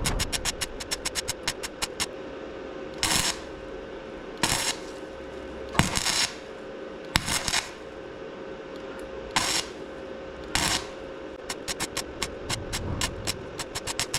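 Welding on a rusted steel fuel tank: six short welding bursts of under half a second each, with runs of rapid, even ticking at the start and again near the end, over a faint steady hum.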